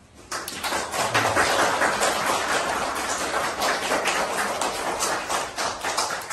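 A small audience clapping its hands: applause that breaks out suddenly at the start, holds steady, and begins to die away at the very end.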